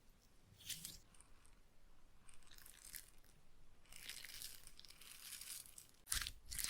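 Slime worked and pressed over a microphone for ear-cleaning ASMR: faint crackling with a short burst about a second in, a soft stretch in the middle, then loud close strokes starting near the end.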